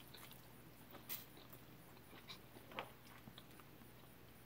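Near silence with faint mouth noises of eating ramen noodles: a few short soft sounds, the clearest about a second in and nearly three seconds in.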